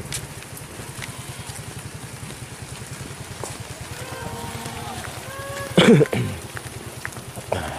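A small engine running steadily, a low, even pulsing throughout. About six seconds in, a brief loud voice cuts across it.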